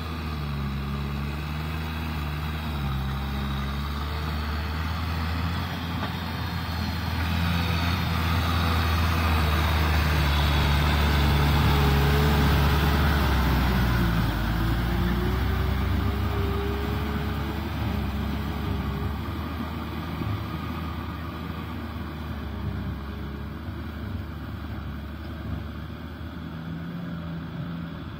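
Kubota M6040SU tractor's diesel engine running under load, with the churning splash of its rear rotavator tilling wet mud. The sound is loudest about halfway through, and the engine pitch wavers slightly. It fades toward the end as the tractor pulls away.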